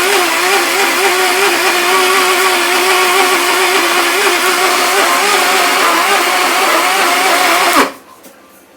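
Electric kitchen blender running at full speed, blending cubed Irish potatoes with a little water, its motor pitch wavering slightly as the contents churn. Near the end it is switched off and the motor winds down with a falling pitch.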